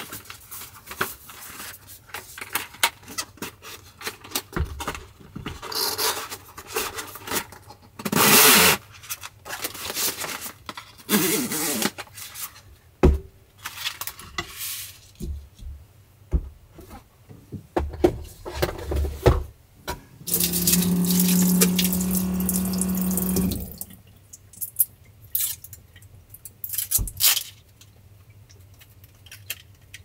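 Kitchen handling sounds: a cardboard box being opened and paper rustling, with light clicks and knocks on a wooden counter. A little past halfway a steady hum with rushing noise lasts about three seconds, and near the end water runs quietly at the sink.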